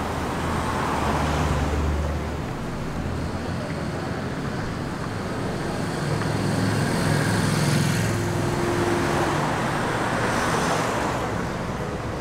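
Street traffic passing close by. A Dodge Challenger's engine is loudest in the first two seconds, then fades. A motorcycle's engine then swells from about the middle, peaks, and dies away near the end.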